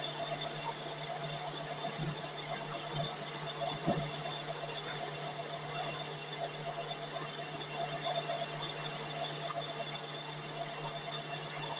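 Lathe running steadily with a semi-truck flywheel spinning in it while sandpaper is held against the turning face: a steady machine hum over a high hiss, with a few faint knocks about two to four seconds in.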